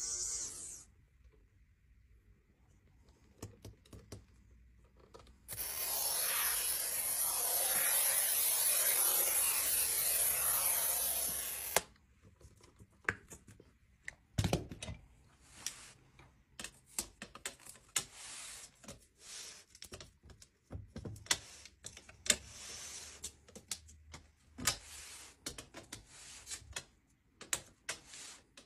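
A suction-cup circle glass cutter's wheel scoring sheet glass: a loud, steady scraping hiss for about six seconds. Then many sharp, irregular taps as the score line is tapped from underneath to run the cut.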